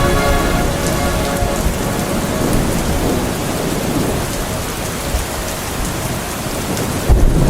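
Rain sound effect falling steadily as the last of the slowed, reverb-drenched music fades out in the first second or so. A low thunder rumble breaks in suddenly near the end.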